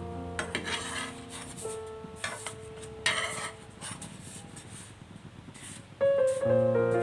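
Soft scraping and rubbing handling sounds, several short strokes, over piano background music that fades out and then comes back louder about six seconds in.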